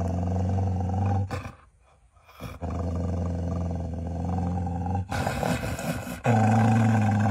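An Australian cattle dog (blue heeler) howling: three long, low, steady howls with short breaks between them.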